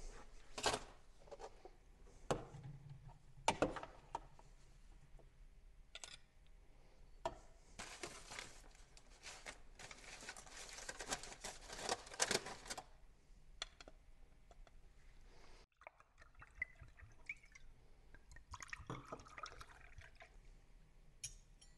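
Kitchen utensils clicking and scraping against a baking dish and plate as sauced food is served, with soft wet squishing of the food. A dense run of rapid scraping and clinking comes in the middle, then the sound drops off suddenly and only faint room sound with a few light clicks remains.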